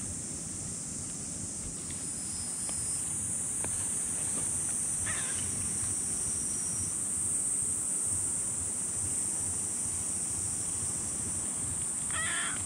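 Wind buffeting the microphone, with a steady high-pitched hiss above it. A kitten gives a short, faint meow about five seconds in and another near the end.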